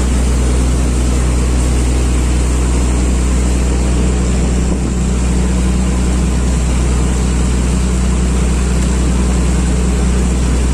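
Boat engine running steadily under way: a loud, deep, even drone over a constant rushing noise.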